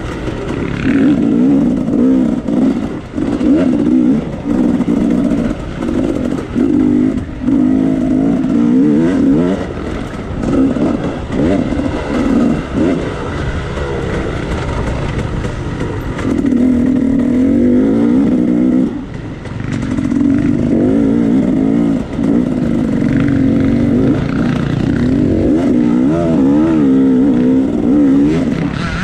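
Off-road dirt bike engine under constant throttle changes, its pitch rising and falling, with the throttle chopped off briefly again and again and a short lull about 19 seconds in.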